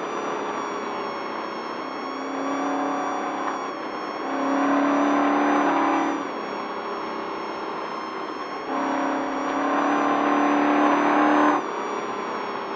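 Off-road race truck engine running hard, its note climbing in three long pulls (about two, four and nine seconds in), each cutting off suddenly as the throttle comes off or a gear changes; the last pull is the loudest.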